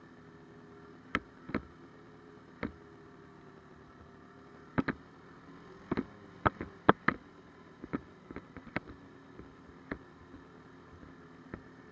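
Muffled, steady drone of a snowmobile engine, picked up by a camera mounted on the moving sled. Sharp, irregular knocks and clicks from the jolting camera mount come thickest in the middle.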